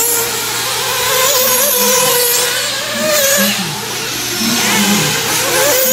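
Radio-controlled off-road cars racing on a dirt track, their motors whining up and down in pitch as they speed up and slow through the turns.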